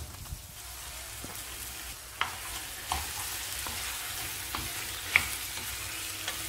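Raw chicken pieces sizzling in hot oil with onions in a frying pan as they are stirred with a wooden spatula, the spatula knocking against the pan three times, the loudest about five seconds in.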